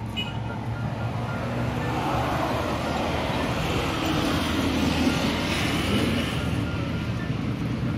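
A minivan driving past close by, its tyre and engine noise swelling to a peak about five seconds in and then fading.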